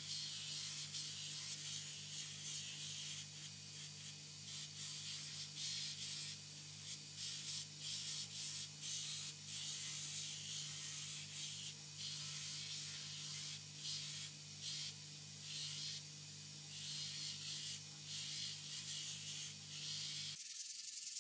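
A vertical belt grinder runs with a steady motor hum while a wooden hatchet handle is sanded against its belt. The gritty sanding hiss swells and fades with each pass of the wood. The sound cuts off suddenly near the end.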